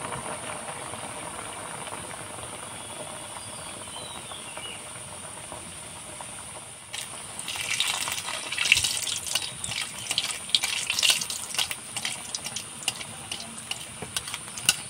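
A stuffed, fish-shaped flour pastry deep-frying in hot oil in a metal kadai: a steady sizzle, turning into louder crackling with many sharp clicks from about seven seconds in, as a metal spatula works in the oil and against the pan.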